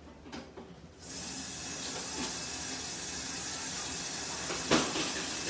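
Kitchen tap turned on about a second in, water running in a steady hiss to fill an emptied tomato sauce can, with one sharp knock a little before the end.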